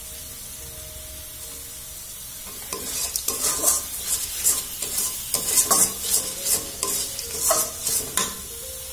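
A steel spoon scraping and stirring thick carrot halwa in a metal karai over a steady frying sizzle. The quick scraping strokes, about three a second, start about three seconds in and stop shortly before the end.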